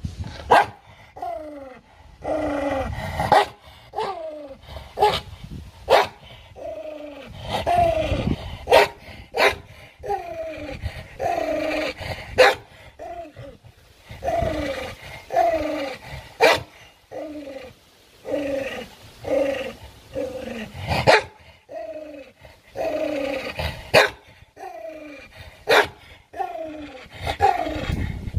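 A dog snarling and growling in a long run of short calls, each falling in pitch, about one a second, with sharp clicks between them. It is guarding a piece of food lying in front of it.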